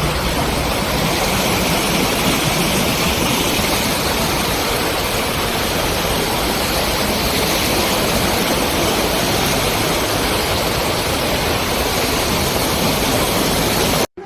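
Loud, steady roar of rushing floodwater, cutting off suddenly near the end.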